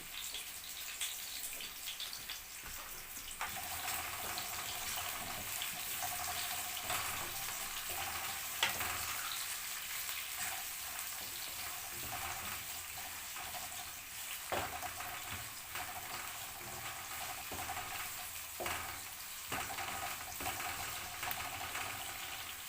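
Onions sizzling steadily as they fry in oil in a pot, with a few sharp knocks scattered through.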